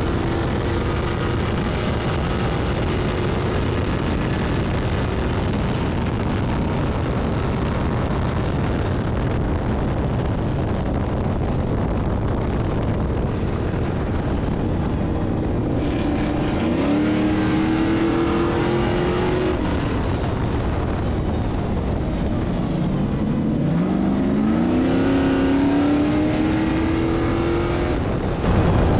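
Stadium Super Trucks' race engines running hard at racing speed, rising in pitch as they accelerate twice, about two-thirds of the way through and again near the end.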